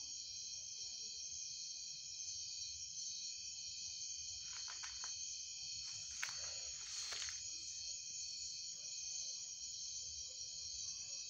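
Steady, high-pitched chorus of night insects, several pitches held without a break. A few brief rustles or clicks come about halfway through.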